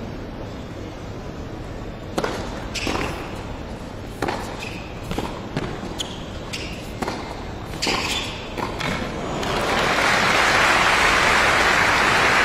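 Tennis rally: a serve, then racket strikes and ball bounces every half second to a second, with short shoe squeaks on the hard court between them. About ten seconds in, the crowd breaks into loud applause as the point ends.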